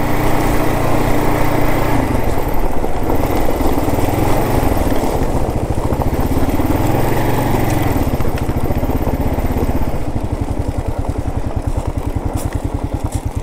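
Kawasaki KLR 650's single-cylinder four-stroke engine running as the motorcycle rides along; in the last few seconds the engine note drops to a slower, distinct chug as it eases off.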